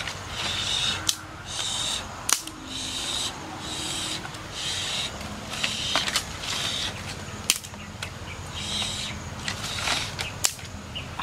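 Dry twigs and sticks cracking and clattering as they are snapped and laid between the fire stones, five sharp snaps spread through, over a steady background of a repeating animal call.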